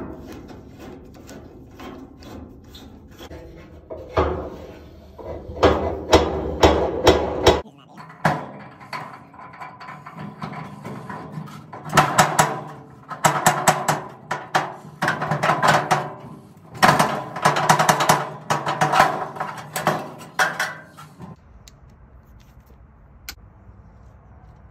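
Metal scraping, clicking and clanking from a Dearborn gas heater's burner manifold and screws as they are worked loose inside the heater's sheet-metal cabinet. It comes in several loud rattling bursts, then goes quiet for the last few seconds apart from one click.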